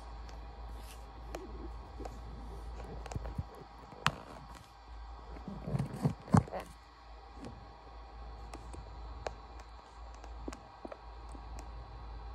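A hand and arm handling the phone close to its microphone: soft rubbing and knocks, with one sharp thump a little past the middle, over a steady low hum and faint scattered clicks.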